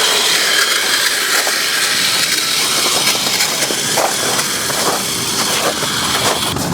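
Electric motor of a remote-control model whining at speed over a loud, steady rushing noise.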